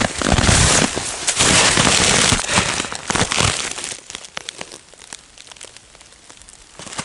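Crunching, crackling and rustling close to the microphone, loud for about four seconds, then dying down to scattered light clicks.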